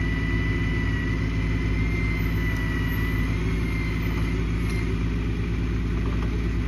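Bucket truck's engine running steadily, powering the aerial lift, with a thin high whine over it that fades out about five seconds in.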